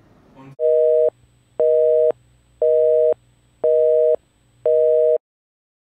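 Telephone busy signal: five steady two-tone beeps, about one a second, then it cuts off.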